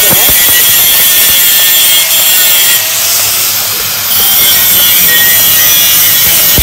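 Handheld grinder with its disc biting into a steel pipe weld, grinding out a root concavity defect. The grinding runs steadily, eases off slightly about three seconds in, then bears down again.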